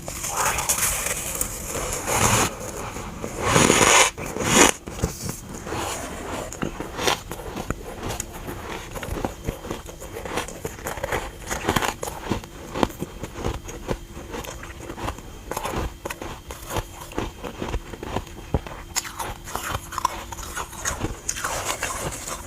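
Freezer frost being bitten and chewed close to the microphone: a few loud crunching bites in the first few seconds, then steady chewing with many small crisp crunches.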